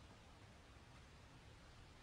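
Near silence: faint, even room tone.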